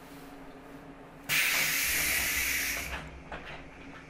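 A sudden burst of compressed air hissing from the pneumatic system of a JR 115-series electric train car, lasting about a second and a half before fading, over the car's steady low hum.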